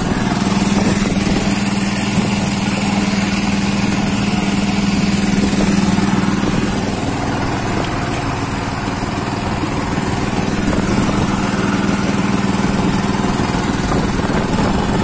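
Small petrol engine on a boat running steadily, its hum easing a little around the middle and coming back, with wind and water noise over it.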